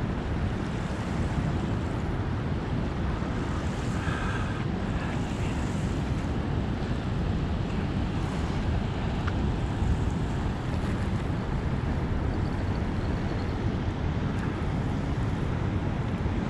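Steady rush of turbulent tailwater below a dam spillway, with wind buffeting the microphone.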